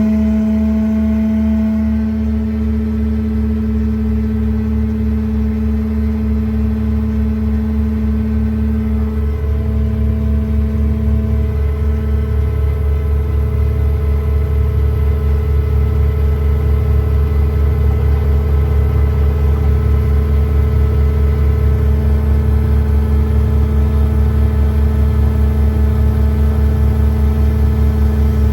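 The truck's PTO-driven hydraulic air compressor running steadily, giving a steady whine over the low rumble of the 6.7 Cummins diesel at raised idle.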